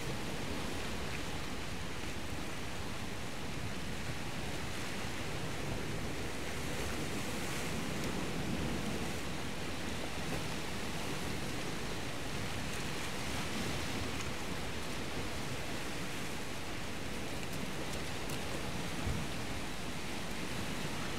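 Steady outdoor rushing noise with no distinct events, apart from one faint knock about nineteen seconds in.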